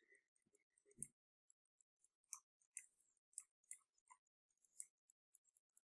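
Near silence, broken by faint, irregular clicks and taps from hands working a computer's desk input devices while sculpting. There is a soft knock about a second in.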